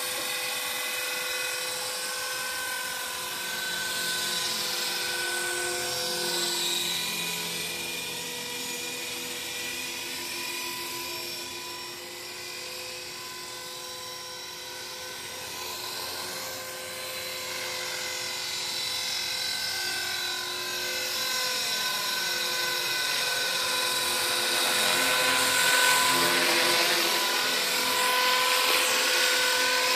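HK 450 PRO TT, a 450-size electric RC helicopter, in flight: the steady high whine of its brushless motor and drive gears, made of several tones held together. The pitch shifts slightly as it manoeuvres. The sound fades to its quietest about halfway through, then grows louder toward the end as the helicopter comes back closer.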